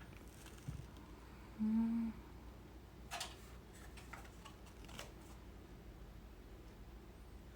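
Quiet handling of a robot vacuum's packaging and papers, with a few light clicks and rustles. A brief low hum sounds about one and a half seconds in.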